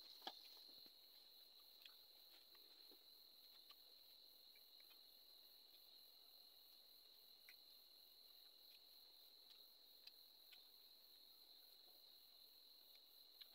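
Near silence, with a faint steady high-pitched trill of crickets and a few faint clicks.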